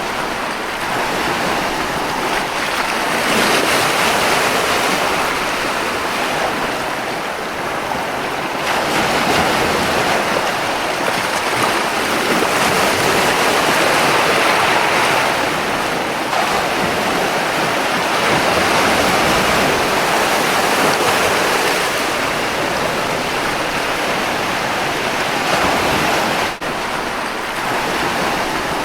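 Ocean surf: a continuous wash of waves that swells and eases every few seconds, with a momentary break near the end.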